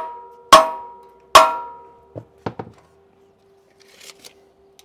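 Hammer blows on steel: two loud, ringing strikes less than a second apart, then a few lighter knocks and faint rattling.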